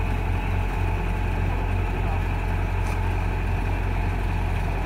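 Kubota combine harvester diesel engine running steadily at an even speed, with a strong low hum and no revving.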